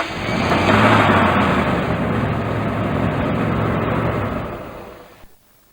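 Truck engine running, with a steady low hum under a broad engine noise, fading out about five seconds in.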